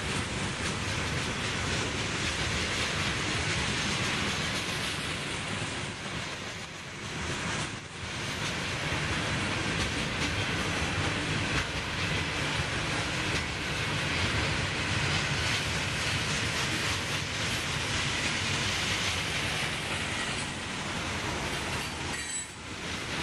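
Loaded freight cars (tank cars, then covered hoppers) rolling past close by: a steady rumble and clatter of steel wheels on the rails, dipping briefly twice.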